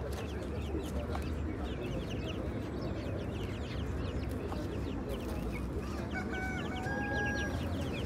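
Chickens calling: many quick high peeps and clucks throughout, with a longer held call from about six seconds in, over a steady low rumble of background noise.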